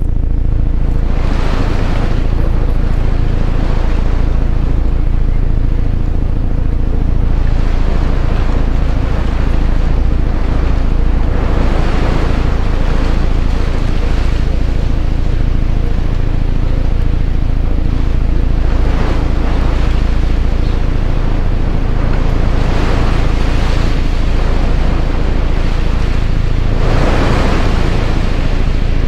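Live-mixed experimental soundscape built from manipulated recordings of a house and its surroundings. A steady low drone sits under washes of noise that swell and fade every few seconds.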